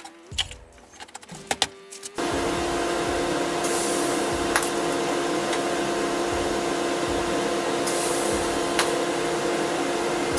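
A few light clicks of metal parts being handled, then about two seconds in a MIG welding arc strikes and sizzles steadily with a steady hum, as the steel engine mount is tack-welded to the tube frame.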